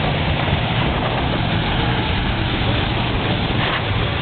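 Car engines running steadily, mixed with a murmur of voices.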